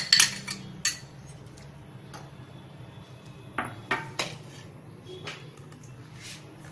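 Steel spoon clinking and scraping against a glass bowl and a cooking pot as sliced onions are knocked into water. The clinks are loudest in the first second, with a few more about four seconds in, over a low steady hum.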